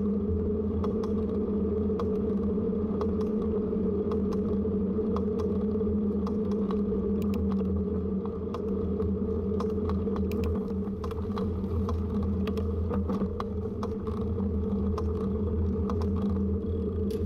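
Bicycle riding noise: a steady low hum with frequent light clicks and rattles.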